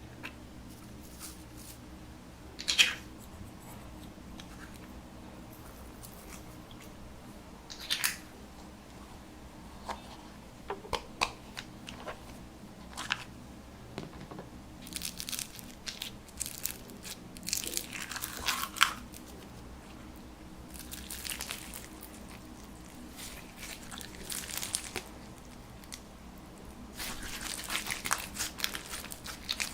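Slime being worked by hand, giving irregular sticky crackles and pops. At first they are a few single ones, then they come in denser crackling stretches.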